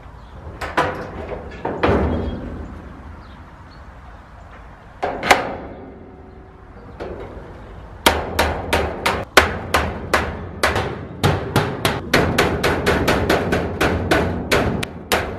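Hammer striking the steel hinges of an old metal cabinet door. A few separate blows come first, then from about halfway a quick, even run of strikes at roughly three a second.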